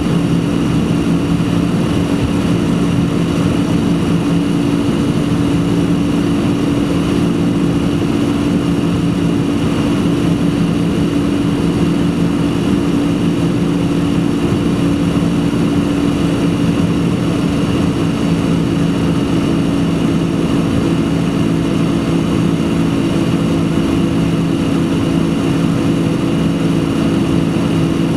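Boeing 767-300's turbofan engines heard inside the cabin during the climb after takeoff: a loud, steady drone with a few constant low hums over the rushing noise.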